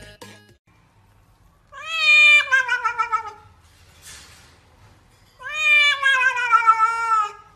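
A wet cat being bathed meows twice in long, drawn-out yowls, each about two seconds and sliding down in pitch. A short soft hiss comes between them.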